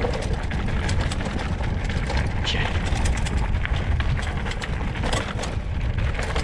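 A mountain bike rattling and clattering over a rough, rocky dirt track, with many scattered sharp knocks from the tyres and frame hitting stones. Steady low wind buffeting on a helmet-mounted camera's microphone runs underneath.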